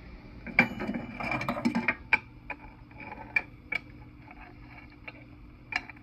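Glass microwave turntable plate and its wheeled roller ring being handled and lifted out: a dense rattling clatter for about a second and a half, then several separate sharp clicks and knocks.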